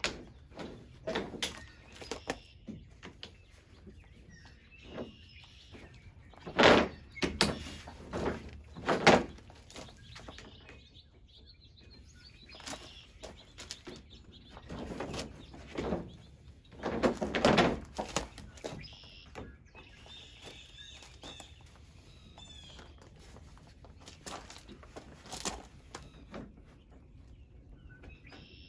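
Irregular knocks, clicks and clatter as the portable cot's shock-corded metal leg poles and clip brackets are handled and fitted into the cot frame, with a few louder clunks. Birds chirp faintly in the background.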